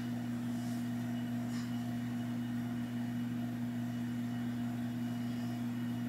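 A steady electrical hum: one unchanging low tone with fainter higher tones above it. There are a couple of faint light ticks in the first two seconds.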